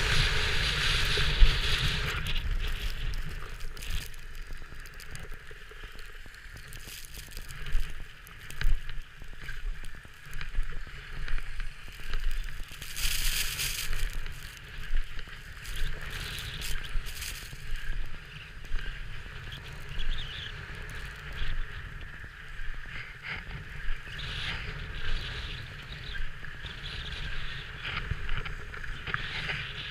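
Skis scraping and hissing on packed snow during a downhill run, swelling with each turn about once a second, with a louder skid about halfway through. Wind buffets the microphone as a steady low rumble.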